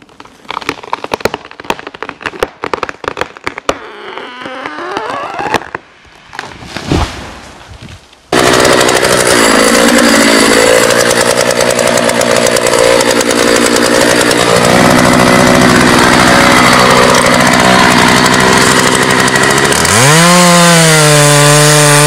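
A run of sharp cracks and snaps, then a heavy thud about seven seconds in. From about eight seconds a Dolmar chainsaw is cutting into a big tree trunk at full throttle. It is loud and steady, its pitch dips now and then and swings up and down near the end.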